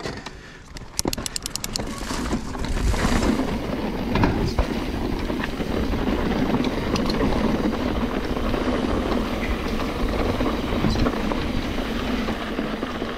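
Mountain bike rolling down a rough dirt trail: a steady rumble of tyres on dirt and the rattle of the bike, with scattered knocks. A quick run of clicks comes about a second in.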